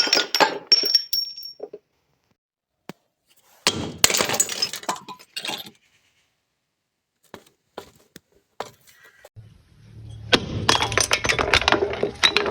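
Glass bottles breaking: a shattering crash with shards clinking and one bright ringing note at the start, a second smash about four seconds in, then from about ten seconds in a dense crunching and crackling of glass being crushed over a low rumble.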